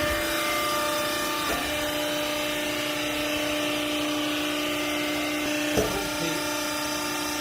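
Hydraulic cloth baler running, its motor and pump giving a steady whine over a mechanical hiss, with a single knock about six seconds in.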